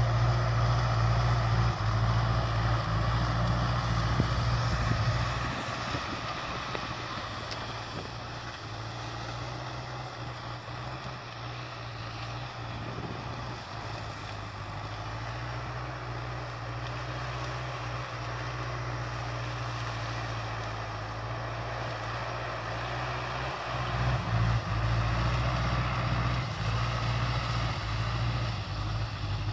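Tractor diesel engine running steadily under load while pulling a rotary tiller through dry corn stalks. It is louder near the start, drops back for a long stretch in the middle as the tractor moves off, and grows louder again about 24 seconds in.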